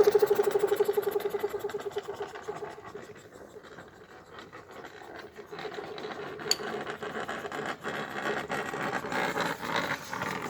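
Tyre-driven air-compressor pump on a child's trike, its shaft spun against the wheel, running with a fast, even pulsing that fades out over the first two or three seconds. After that, fainter scratchy noise with scattered clicks, one sharp click about six and a half seconds in.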